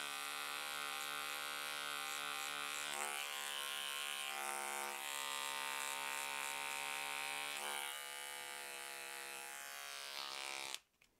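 Rechargeable Remington beard trimmer running with a steady electric buzz as it cuts along a sideburn. It gets a little quieter about eight seconds in, then is switched off and stops abruptly just before the end.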